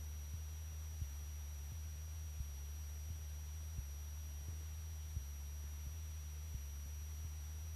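Single-engine Cessna's piston engine and propeller in cruise, heard from inside the cockpit as a steady low drone. Faint ticks come about every 0.7 s, and a thin high whine runs steadily over it.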